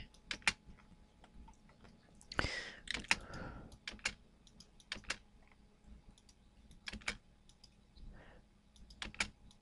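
Computer mouse clicks and a few keyboard key presses: scattered short, quiet clicks at uneven intervals, while crossing selection windows are picked and the erase command is typed in AutoCAD.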